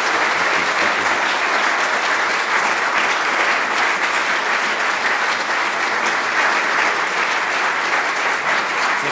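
A large standing congregation applauding, a dense, even clapping that holds steady throughout.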